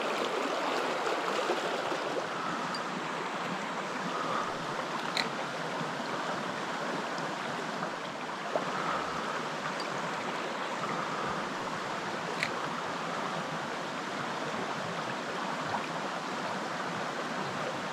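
Small creek running over rocks: a steady rush of water, with two brief sharp ticks, one about five seconds in and one about twelve seconds in.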